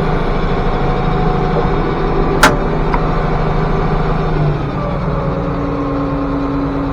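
International Harvester 1086 tractor's six-cylinder diesel engine running steadily, with a single sharp click about two and a half seconds in. The engine note shifts and drops slightly about four and a half seconds in.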